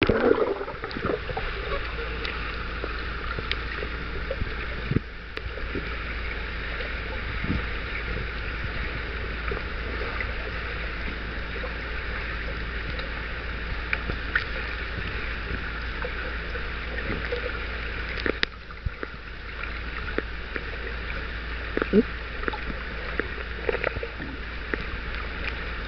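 Muffled underwater swimming-pool ambience heard through a submerged camera: a steady hiss with a low hum underneath, broken by scattered small clicks and knocks.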